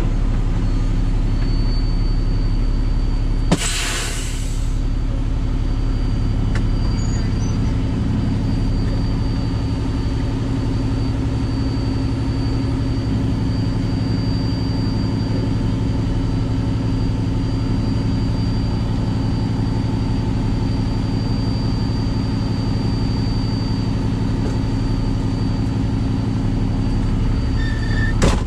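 Cummins ISX15 inline-six diesel of a 2014 Peterbilt 389 truck running steadily, with a short hiss about three and a half seconds in.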